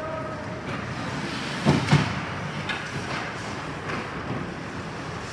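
Ice hockey play: two sharp knocks of puck, stick or body against the rink boards about two seconds in, then a few lighter clacks, over steady arena noise.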